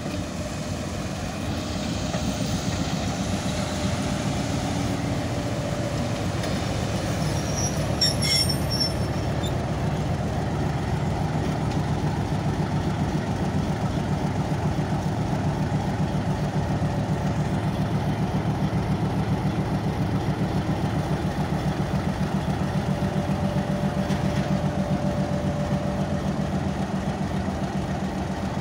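Pakistan Railways HBU-20 diesel locomotive rolling slowly past at close range, its engine running with a steady, low, pulsing drone. A brief high squeal comes about eight seconds in.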